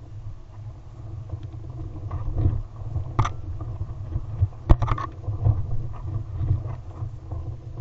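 Wind buffeting a GoPro hung beneath an Air Sled kite in flight: an uneven low rumble, with the kite's fabric flapping and snapping sharply a few times near the middle.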